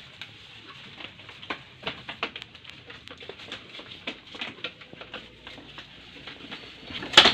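Goats moving and feeding on the slatted wooden floor of a pen: irregular light clicks and knocks, with one much louder knock near the end.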